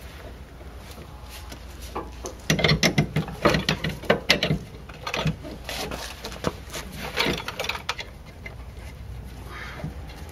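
Bursts of quick metallic clicks and clunks from front-suspension parts and tools as a steering knuckle is raised into place, over a low steady hum.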